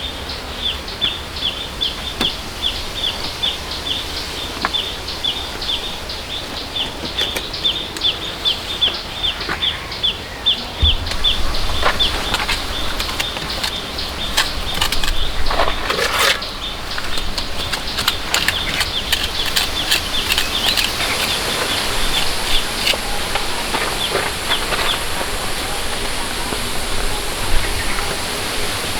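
A bird calling with short, high chirps repeated about three times a second, dying out a few seconds before the end. Scattered knocks and a rustling scrape about halfway through stand out over it.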